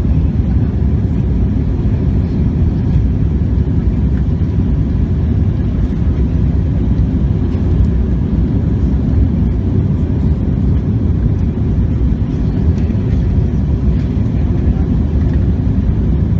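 Steady low rumble of an Airbus A321-200's jet engines and the air rushing past the fuselage, heard inside the passenger cabin during the climb after take-off.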